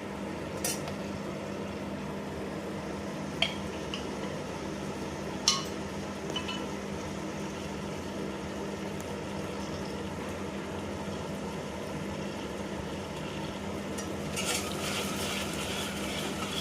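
Kitchen cooking sounds: a few sharp clinks of a utensil against a pot over a steady hum, with a soft hiss near the end.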